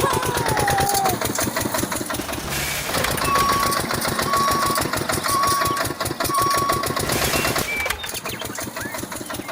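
Small engine running steadily with a fast, even chugging rhythm. Four short, evenly spaced beeps sound over it in the middle.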